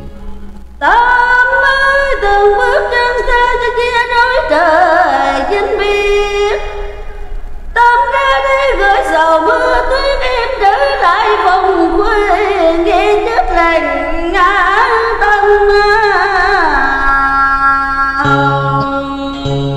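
A woman singing long, drawn-out notes with heavy vibrato, gliding between pitches with almost no accompaniment. She breaks off briefly about seven seconds in, and a steady instrumental backing comes back in near the end.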